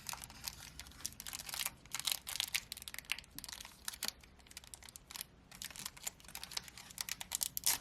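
A foil trading-card pack wrapper crinkling and tearing as it is opened by hand, a dense run of irregular crackles.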